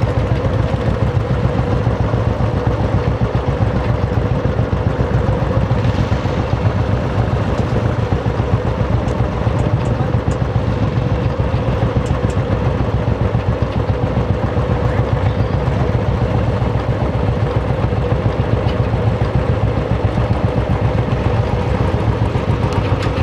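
Royal Enfield motorcycle engine idling steadily, a rapid, even thumping.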